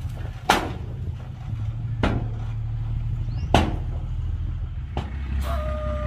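Heavy earthmoving machinery running with a steady low engine drone, with four sharp knocks about a second and a half apart. A short steady tone starts near the end.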